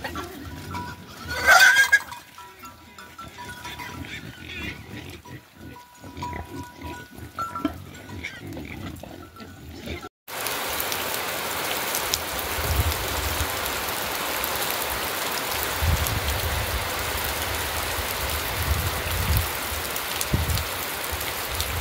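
A herd of pigs and piglets feeding, one giving a loud squeal about a second and a half in. About ten seconds in the sound cuts to a steady hiss of rain with a few low rumbles.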